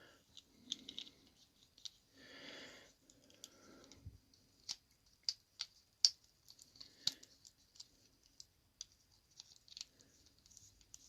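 Faint, scattered clicks and scrapes of a small screwdriver against a plastic action figure as it is worked apart.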